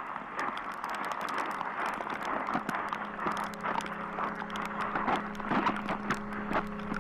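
Ice pellets falling in a storm, ticking in quick irregular clicks against the ground and the camera. About three seconds in, a steady low musical drone fades in underneath.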